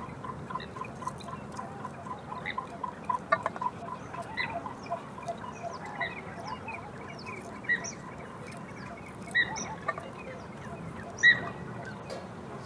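Birds calling: a fast run of evenly spaced short notes, about three a second, for the first few seconds, then scattered short chirps and calls, a few of them sharper and louder.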